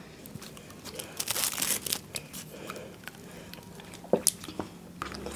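Faint crinkling and scattered light clicks of small paper Maaza mango drink cartons being handled and sipped through straws, with one sharper click about four seconds in.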